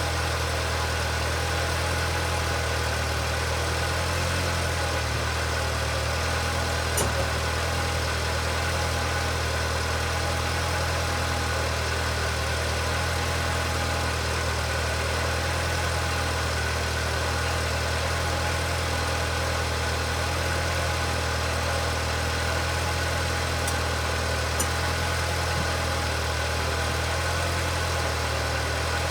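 Engine idling steadily, an even hum that does not change, with a couple of faint clicks.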